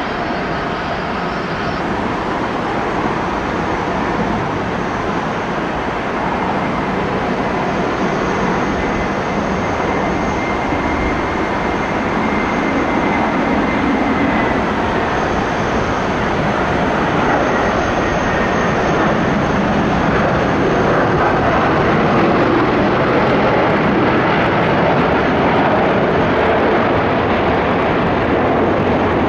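Airbus A330-200's two Pratt & Whitney PW4168A turbofans running at taxi power: a steady jet rush that slowly grows louder, with a faint whine that rises slightly and then falls away midway.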